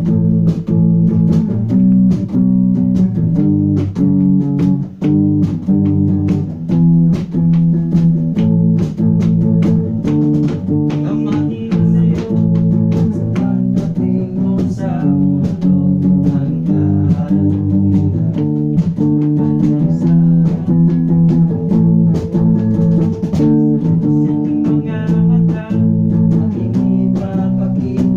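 Guitar music with bass guitar: plucked and strummed notes played continuously.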